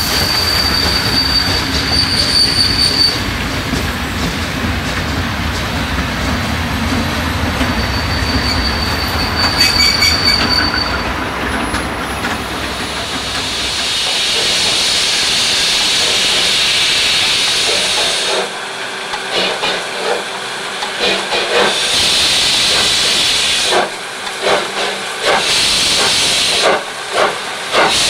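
A train rolling slowly past, its wheels squealing in a high tone twice. About halfway through this gives way to loud steam hissing from the steam locomotive's open cylinder drain cocks, broken from about two-thirds of the way in by short, sharp beats.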